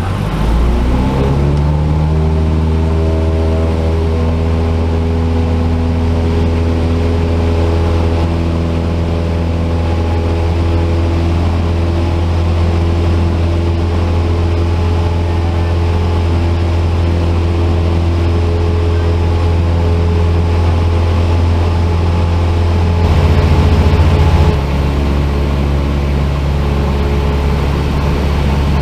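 Cessna 172's piston engine and propeller droning steadily in the cockpit. About 23 seconds in, the engine note shifts and grows louder for a second or two, then settles into a new steady drone.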